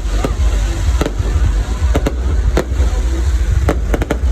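Aerial fireworks bursting: sharp bangs at irregular intervals, coming in a quick cluster near the end, over a steady low rumble.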